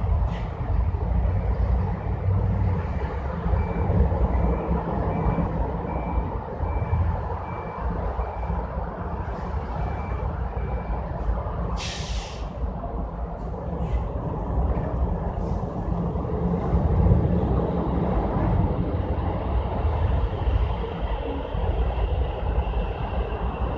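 Low steady rumble of a vehicle engine with faint, evenly spaced beeps, a bit more than one a second, through the first half. About halfway there is a short, loud hiss.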